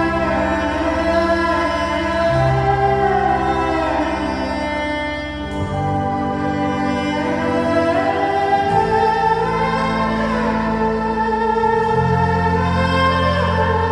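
Slow orchestral music with sustained choir-like voices over long bass notes that change every few seconds.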